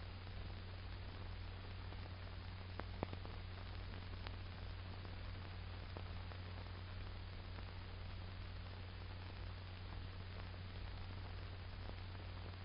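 Steady low hum under an even hiss, the background noise of an old film soundtrack, with a couple of faint clicks about three seconds in.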